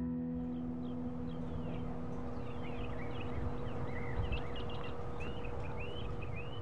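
Outdoor birdsong: several small birds chirping in short rising and falling calls, over a steady background hiss and a faint steady hum.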